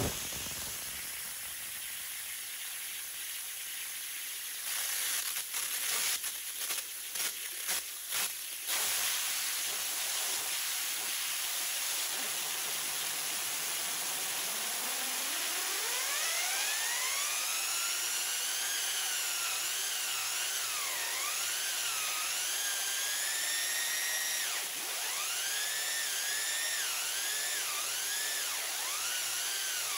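High-pressure abrasive waterjet hissing steadily as it drives the chain of a chainsaw bar, with several short sputtering bursts a few seconds in. From about halfway through, the spinning chain whines and rises steeply in pitch, then wavers and dips again and again as a 2x4 is pressed into it.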